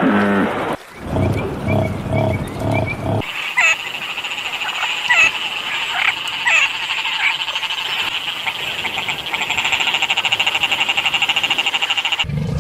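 Frogs calling: a few low repeated croaks, then a chorus of chirps and a fast pulsing trill that grows louder toward the end. The sound changes abruptly twice.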